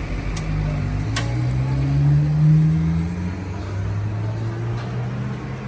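A motor vehicle's engine running close by, its pitch rising and growing louder about two to three seconds in, then settling. Two sharp clinks sound in the first second or so.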